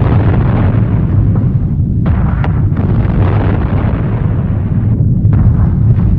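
Explosions of a bombing raid: a deep continuous rumble with swelling waves of blast noise and a few sharp cracks, most of them in the second half.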